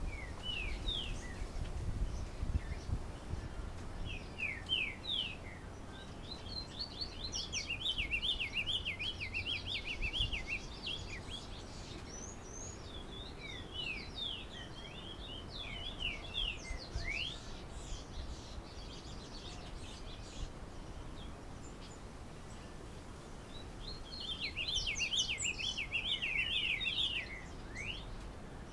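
A caged diademed tanager (sanhaço-frade) singing its 'galopeado' (galloping) song: bouts of rapid, chattering notes that each fall quickly in pitch, with pauses of a few seconds between bouts.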